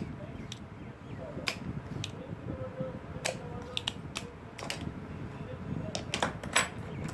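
Spring-loaded desoldering pump (solder sucker) snapping and being re-cocked while solder is drawn off the pins of a 555 timer IC on a circuit board: a dozen or so sharp, irregular clicks, bunched more closely near the end.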